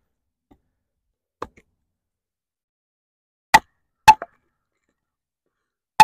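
Wooden baton striking the spine of a Takumitak Solution D2-steel tanto fixed-blade knife, driving it through a log to split it: sharp knocks. There is a faint one about a second and a half in, two hard strikes about half a second apart around three and a half to four seconds in, and another hard one at the very end.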